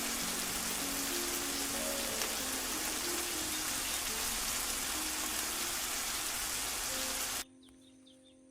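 Heavy rain falling as a dense, steady hiss, with a soft background melody over it. Both cut off suddenly near the end, leaving faint chirps.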